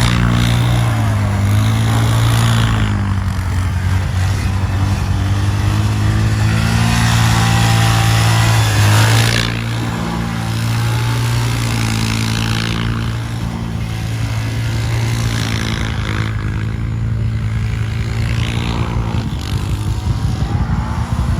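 Four-wheeler (ATV) engine running at a fairly steady speed, its pitch bending up and down slightly, easing off and getting quieter about nine and a half seconds in.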